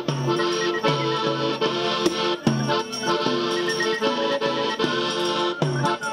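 Traditional folk dance music led by an accordion, playing sustained chords over a steady, even beat with regular bass notes and light percussion.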